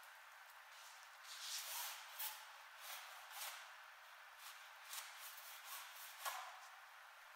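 A dark drawing stick stroked and rubbed against a stretched oil canvas: about eight short hissing strokes at uneven intervals.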